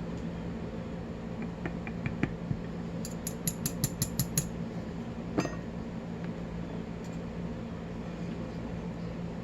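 Small metal lock parts clicking and clinking as a padlock's pin-tumbler core is taken apart by hand, with a quick run of about eight sharp clicks near the middle.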